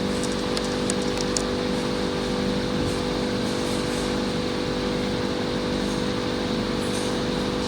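Deformation testing machine's motor drive humming steadily as it squeezes a vacuum cleaner connecting tube under load, with a few faint ticks in the first second and a half.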